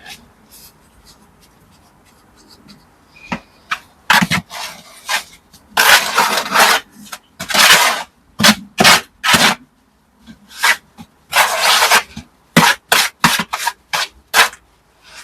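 Irregular scraping strokes of a hand tool on mortar and brickwork, some short, a few drawn out for about a second, starting about four seconds in.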